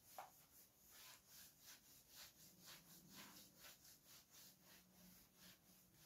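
Near silence: faint room tone with soft, evenly spaced ticks about four times a second.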